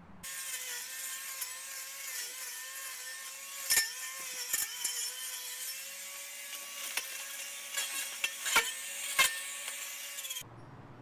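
Ryobi 40V Expandit battery string trimmer running steadily with a high, even motor whine as it cuts overgrown grass and weeds. Sharp snaps come now and then as the line strikes stems and debris. The sound cuts off abruptly near the end.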